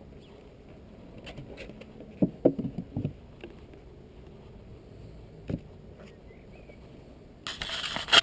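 Beekeeping tools being handled with gloved hands: a short cluster of light knocks and clatters a little over two seconds in and one more knock at about five and a half seconds. Near the end, a loud rustle starts.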